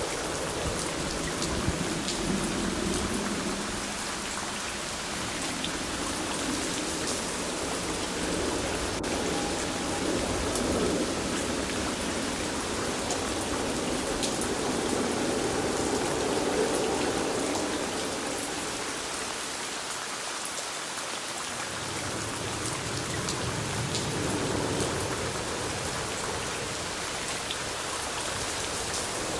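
Steady rainfall, a continuous hiss with many scattered drop ticks. Underneath runs a low rumble that rises and falls, dropping away about twenty seconds in before returning.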